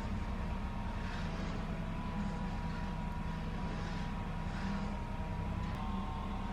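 Steady low mechanical hum with a fixed whine in it, and faint hissing swells roughly once a second.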